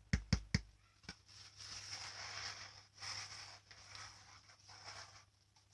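Three quick knocks on the stiff cone of a 12-inch JIC LA12100 speaker driver, then a few seconds of rustling and handling noise.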